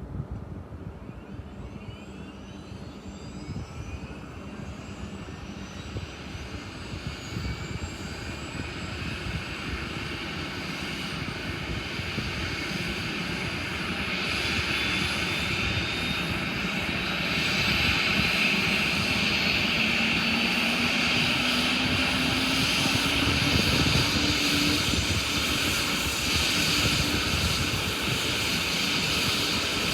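Airbus H145 helicopter's turbine engines spooling up: a whine that rises in pitch over a steady engine rush, growing louder and levelling off about halfway through.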